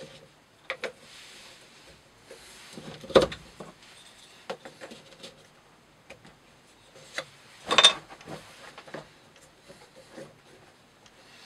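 Hands resetting a rope-cutting test rig: knocks and clicks of a wooden block and the rig's clamp, with faint rustling of rope being fed into the holder. The two loudest knocks come about three seconds in and near eight seconds.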